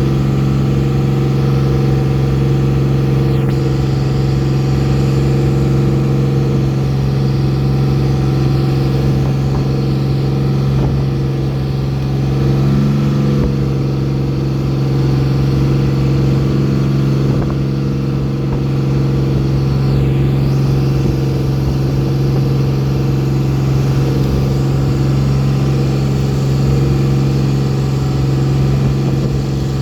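Boat engine running at a steady speed, a constant loud drone with an even pitch.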